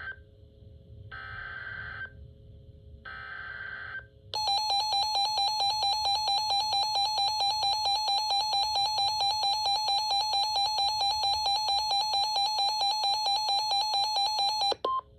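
Emergency Alert System broadcast tones: the SAME header's data bursts, each about a second long with second-long gaps. They are followed by the loud EAS attention signal, a buzzing alarm tone that pulses several times a second for about ten seconds before cutting off, signalling that a warning message follows.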